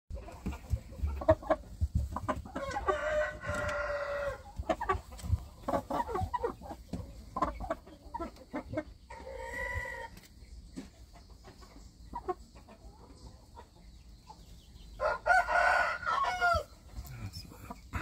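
Young gamecocks crowing three times: a long crow about two and a half seconds in, a shorter one near the middle, and another long one about fifteen seconds in that wavers as it falls away. Short clucks come between the crows.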